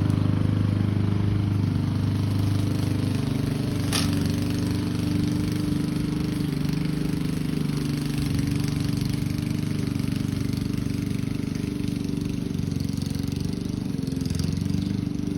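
Lawn mower engine running steadily close by, slowly growing fainter as it moves off. A sharp click about four seconds in.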